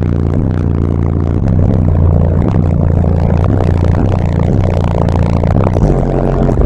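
Loud bass-heavy music played through two Sundown Audio ZV5 15-inch subwoofers in a sixth-order enclosure, driven by a Sundown SCV 7500 amplifier, heard inside the car cabin. The bass line moves to a deeper note about six seconds in.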